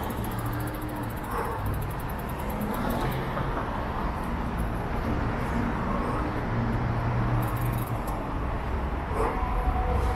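City street traffic: cars and their engines passing in a steady, continuous rumble.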